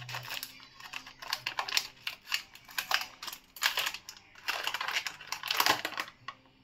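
Scissors snipping open a foil food pouch, then the foil crinkling as it is handled, in quick irregular crackles.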